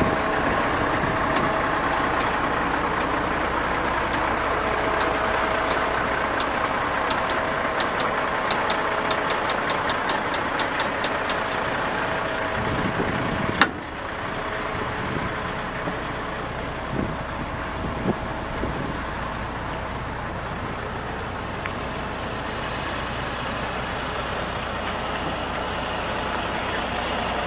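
Kenworth T800B dump truck's diesel engine running steadily. A run of faint regular ticks comes a few seconds in, and a sharp click about halfway through, after which the running sound is a little quieter.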